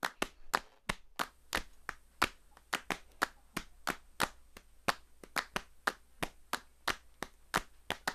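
A hammer tapping a steel punch to widen a horseshoe's nail holes: a steady run of light, sharp taps, about three a second.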